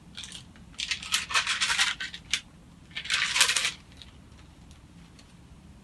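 Thin Bible pages being turned, the paper rustling in two quick bursts about a second apart, with a few faint ticks of handling around them.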